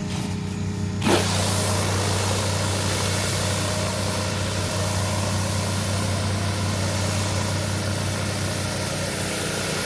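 Greenworks 1900 PSI electric pressure washer running with a steady motor-pump hum. About a second in, a click is followed by the hiss of high-pressure water spray, which goes on steadily.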